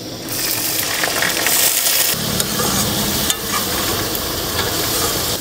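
Sliced onions hitting hot oil in a kadhai and sizzling. The sizzle starts suddenly about a quarter second in and holds steady, while a steel spoon stirs them with light scrapes against the pan.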